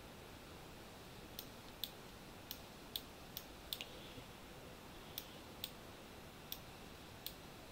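Computer mouse clicking: about a dozen short, sharp clicks at uneven intervals over faint room hiss.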